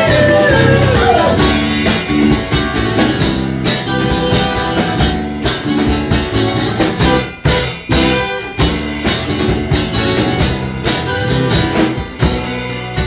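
Folk-rock band playing an instrumental passage: strummed acoustic guitar and tiple over bass and drums, with steady, regular strikes. A held vocal note slides down and fades in the first second or so.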